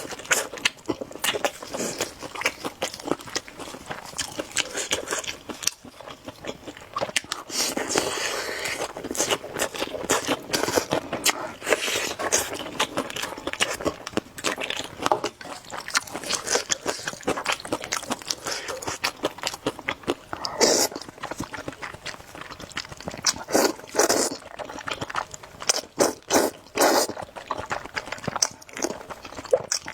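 A person chewing and biting through spicy noodles with eggs, with rapid smacking clicks and louder clusters of mouth sounds every few seconds.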